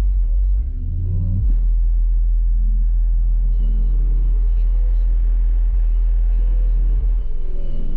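Four 12-inch Sundown X subwoofers in a ported wall box playing loud, deep bass notes. The note changes about a second in and again near the end.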